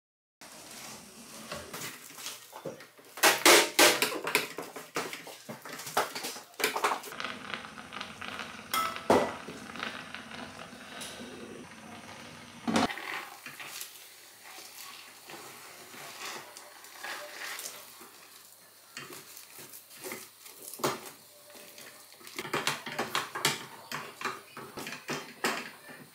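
Wooden spatula knocking and scraping against a stainless steel pot as thick pounded yam dough is stirred and mashed, in irregular clatters, loudest about three to four seconds in.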